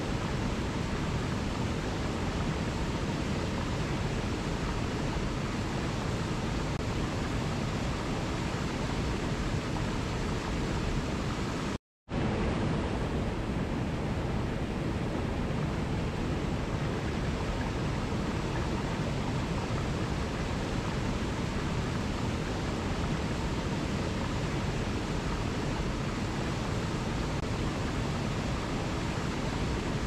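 Steady rushing of a waterfall, with one brief dropout to silence about twelve seconds in.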